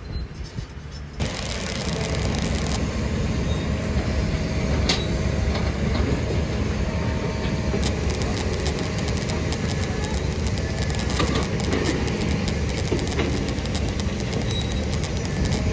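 Heavy diesel construction machinery running steadily, with many sharp clicks and knocks over the engine noise, coming in abruptly about a second in.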